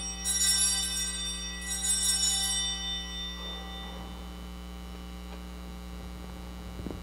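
Altar bells rung twice at the elevation of the consecrated host, their ringing fading out about four seconds in. A steady electrical hum runs underneath.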